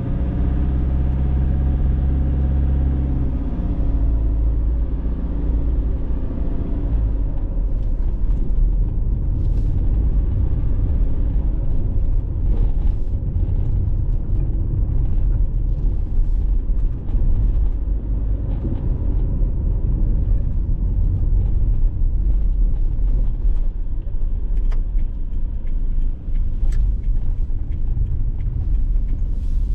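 A car driving on a road: a steady low rumble of engine and tyres, with the engine's hum standing out for the first few seconds before settling into the road noise. Scattered light clicks and knocks sound over the rumble.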